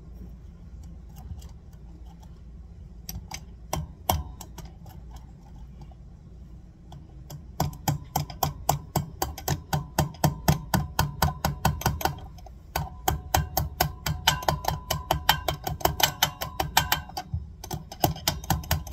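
A wheel bearing being tapped into a rear wheel hub with a hammer, a tight fit. A few scattered taps at first, then from about eight seconds in two long runs of quick, even taps, about five a second, with a brief pause between them.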